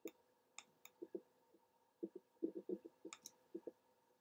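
Faint, irregular clicking of a computer mouse, some clicks dull and low, a few sharper, with a quick cluster a little past two seconds in.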